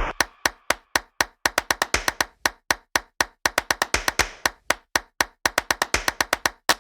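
Rapid rhythm of sharp clap-like percussion hits, several a second with short gaps between runs: a percussion-only passage of electronic music.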